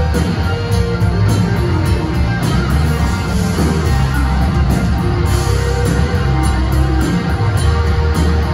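Live rock band playing loudly: distorted electric guitars over bass and drums, heard through the hall's PA.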